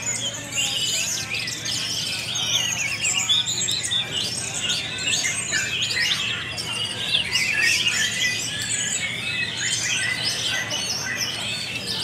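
Many caged songbirds singing at once, a dense overlapping chorus of chirps and rapid trills.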